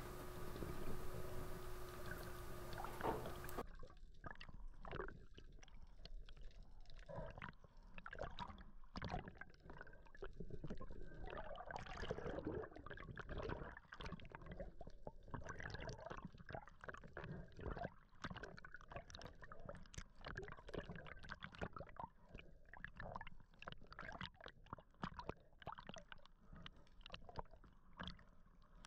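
Muffled underwater sound picked up through a camera housing: many irregular clicks and crackles over a low water rumble. For the first few seconds there is a steady hiss with a faint hum.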